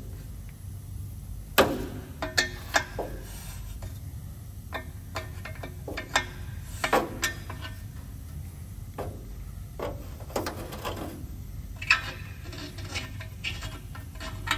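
A long ratchet bar working a seized NOx sensor out of a diesel exhaust pipe. Irregular clicks and short scrapes of metal on metal, over a steady low hum. The sensor's thread is tight, so it has to be turned out a few turns with the bar rather than by hand.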